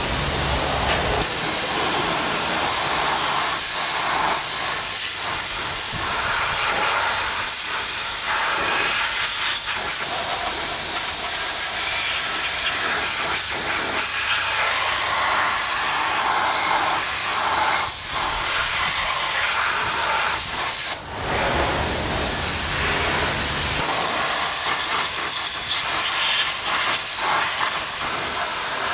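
Pressure-washer lance spraying a high-pressure water jet onto an alloy wheel: a steady, loud hiss, with a brief dip about three-quarters of the way through.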